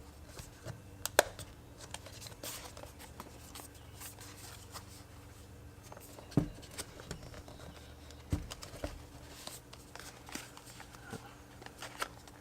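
A smart plug's retail box and packaging being worked open by hand: scattered faint clicks, taps and rustles, with a sharp click about a second in and two dull knocks about six and eight seconds in.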